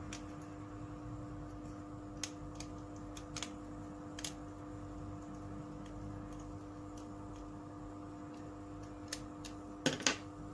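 Scattered light clicks and taps, a louder cluster near the end, over a steady electrical hum.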